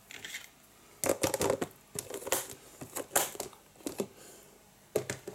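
Clear plastic hatchling tubs being handled: an irregular string of sharp plastic clicks, knocks and crackles, the loudest cluster about a second in.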